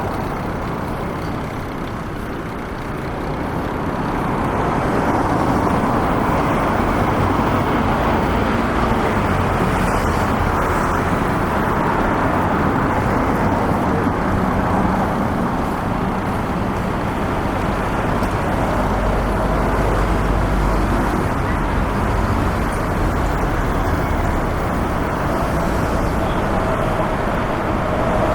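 Steady city road traffic noise from passing cars and trucks, with a heavier low rumble swelling about two-thirds of the way through.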